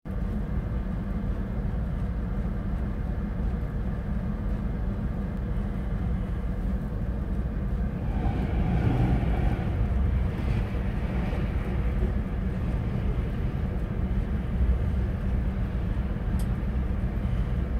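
Diesel-hauled double-stack container freight train passing close by: a steady low rumble of wheels on rail, growing louder with added engine noise as the locomotives go past about eight seconds in, then the continuous rolling of the container wagons.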